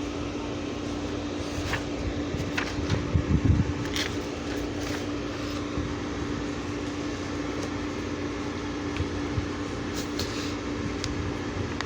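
Dehumidifier running: a steady fan rush over a constant low hum from its compressor, with a few faint clicks.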